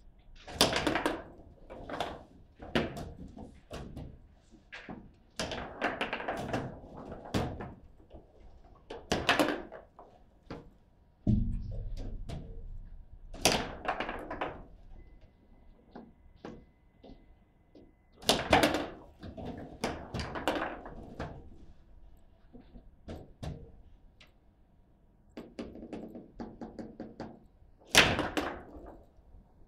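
Foosball table in play: a rapid run of sharp knocks and clacks from the ball striking the plastic players and the table, coming in clusters, with a few loud shots.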